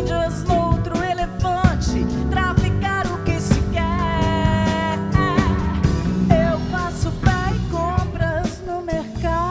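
A woman singing a pop-style song into a microphone, backed by a live band with drum kit, guitars and keyboards.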